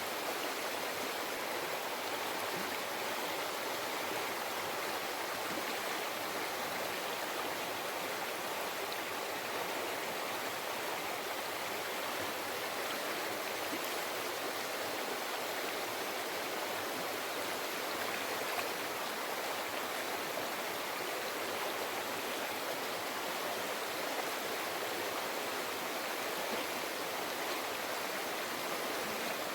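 River water flowing, a steady, even rushing babble with no breaks.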